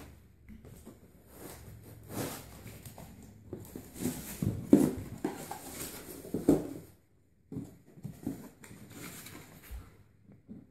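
Irregular rustling and knocking of a cardboard box and its packaging being handled and opened.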